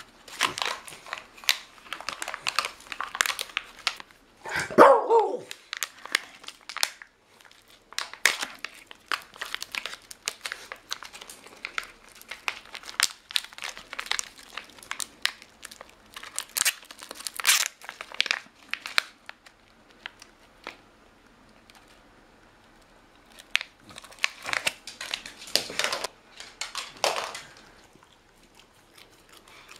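Plastic treat wrapper crinkling and rustling in bursts as hands handle and pull it open. About five seconds in, the beagle gives one short pitched call, the loudest sound.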